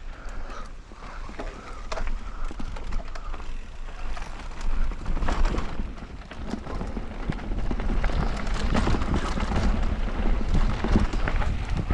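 Mountain bike tyres crackling and rattling over a rough dirt and gravel trail, with wind rumbling on the microphone; it gets louder about halfway through as the bike picks up speed, and a faint steady whine fades out in the first few seconds.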